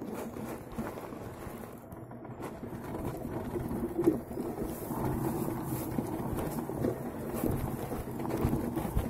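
Steady rumbling of riding along a dirt trail: tyres rolling over rough ground with scattered knocks, mixed with wind on the microphone. It grows louder after about four seconds.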